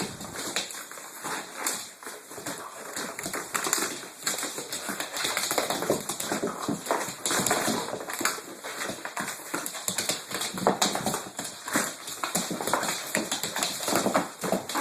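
An Australian Cattle Dog going after a mop, making dog noises over fast, irregular clicking and scuffling on a hard floor.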